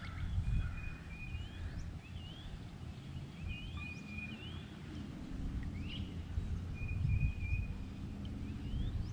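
Wind noise on the microphone, with repeated short bird calls over it: upward-sweeping chirps and brief level whistles every second or two.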